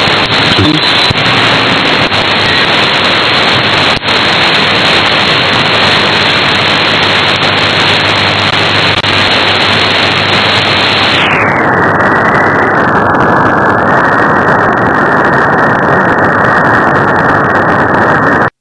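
Steady loud shortwave static and hiss from a software-defined radio receiver tuned between stations. About eleven seconds in, the hiss turns duller as the receiver's audio bandwidth is narrowed.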